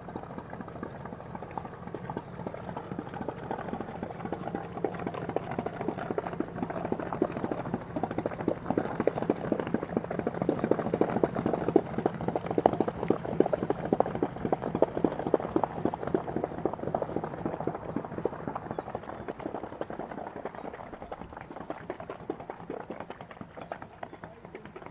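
A boat's engine chugging with a rapid clatter over a low hum as it passes, growing louder to a peak about halfway through and then fading away.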